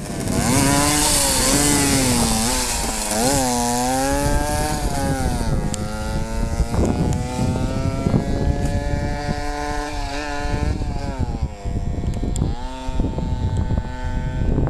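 Tuned Crescent Compact moped's Sachs 50 cc two-stroke engine running hard while riding, its pitch rising and falling several times as it revs through the gears, over a steady rush of wind.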